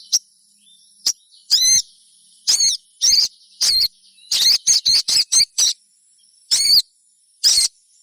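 Little spiderhunter (sogon) giving short, sharp chip calls, each a quick rise and fall in pitch, coming singly or in quick runs of three or four. A faint steady high whine runs underneath.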